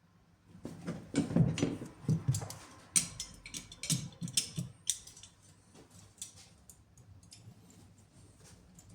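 Irregular clicks, knocks and clatter of parts or tools being handled, busiest in the first half and thinning to scattered ticks near the end.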